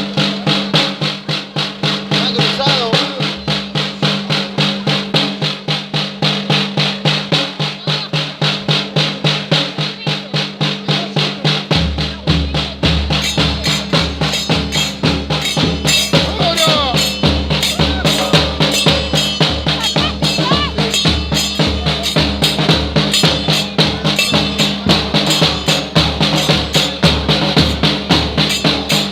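Music with a steady, fast drum beat; a deep bass line comes in about twelve seconds in.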